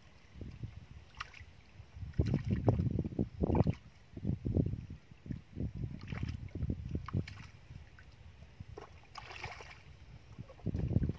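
Hands sloshing and splashing through shallow muddy water in uneven bursts while groping for fish in the mud, with a brighter splash about nine seconds in.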